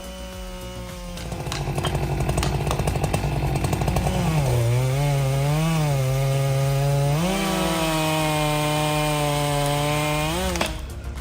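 Chainsaw running at full throttle while cutting. Its pitch drops for a few seconds midway and then comes back up. The engine drops off near the end.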